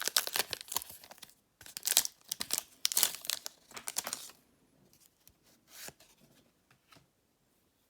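Foil Pokémon booster pack wrapper being torn open and crinkled, in quick crackling rips over about four seconds, then a faint rustle of handling.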